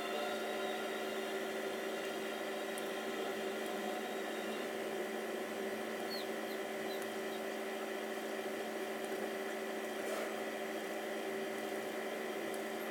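Steady electrical or motor hum made of several steady tones, held at an even level throughout.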